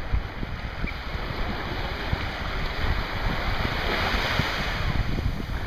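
Small waves breaking and washing up the sand, with a swell of surf about four seconds in, and wind buffeting the microphone.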